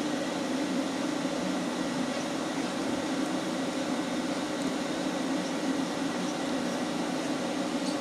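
Steady mechanical hum with an even hiss over it, unchanging throughout, like a running fan or appliance in a small room.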